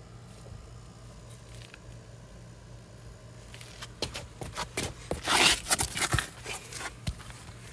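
A steady low hum, then from about four seconds in a flurry of sharp metal clicks and scraping, loudest a little past halfway, as a Harley-Davidson kickstand's return spring is worked against the stand while trying to hook it back in.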